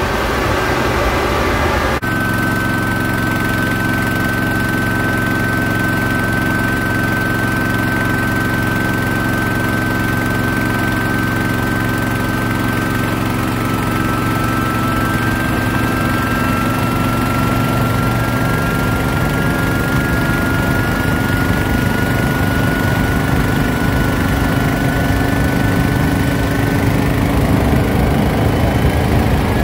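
J34 turbojet engine spooling up during a start: a loud steady rush with a high whine that slowly rises in pitch, growing a little louder near the end as the engine lights off and flame shows at the tailpipe.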